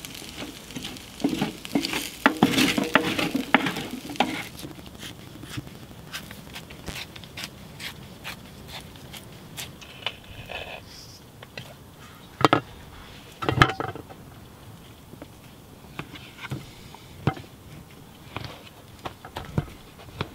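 Wooden spatula stirring and scraping diced potato and onion around a metal pan, clattering for the first few seconds. Then scattered small metallic clicks and scrapes as a corned beef tin is wound open with its key, with two sharp knocks around the middle, and a knife starting to slice the meat on a plate near the end.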